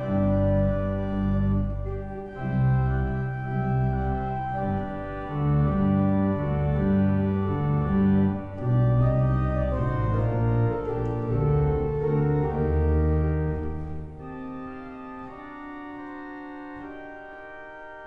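Church organ playing a Christmas air: held chords over a moving bass line. About 14 seconds in, the bass drops out and the music softens to quieter sustained chords.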